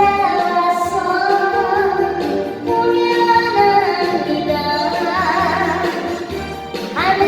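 A woman singing a Korean trot song, holding wavering notes over a backing accompaniment track.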